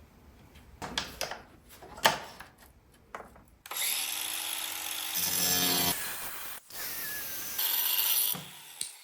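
Light knocks and clicks of tile work, then from about four seconds in a handheld power tool runs loudly in three stretches with short stops between them, a noisy cutting or grinding sound.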